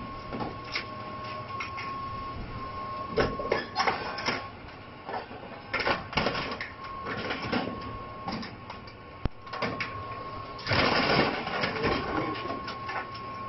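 Hydraulic excavator with a demolition grab tearing into an airliner's fuselage: irregular metallic crunches and clatters, the loudest bursts about three, six and eleven seconds in, over a steady thin whine.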